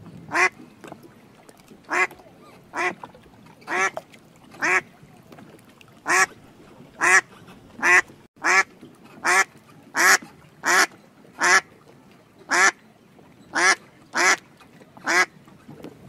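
A duck quacking: a series of about seventeen short, single quacks, coming roughly once a second and somewhat closer together in the second half.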